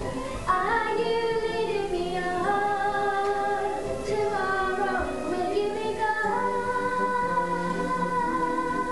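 A young girl singing a song into a microphone, holding some notes long, one of them near the end.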